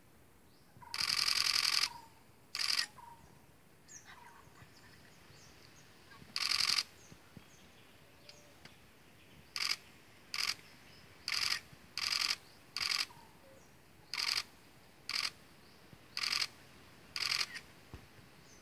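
Camera shutter firing in bursts of continuous shooting: about a dozen bursts of varying length, the longest nearly a second, spaced unevenly and coming more often in the second half.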